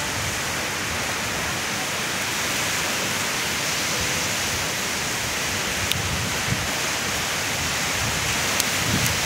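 Steady wash of ocean surf breaking on a sandy beach, an even hiss with no let-up, and a few faint ticks in the second half.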